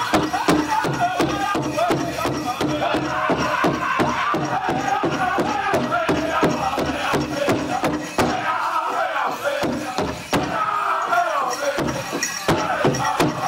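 Powwow drum group singing a chicken dance song in high voices over a fast, steady beat on the big drum. About two-thirds through, the drumbeat drops out for a few seconds while the singing carries on, then comes back.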